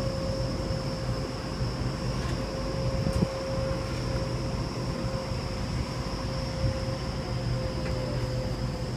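Sydney Trains Waratah electric suburban train at the platform, giving a steady electrical hum with a thin high whine over a low rumble.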